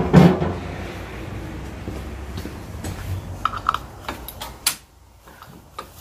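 A loud knock at the start, with a low hum dying away over the next few seconds. Then a run of light metallic clicks and clinks as gloved hands handle the exposed clutch pack of a BMW K1200 GT.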